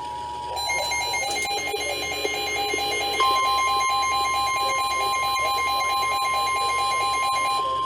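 Weather alert radio alarm: rapid, evenly pulsing beeps that stop near the end, joined about three seconds in by a steady single-pitch tone, the NOAA warning alarm tone that signals an incoming weather warning.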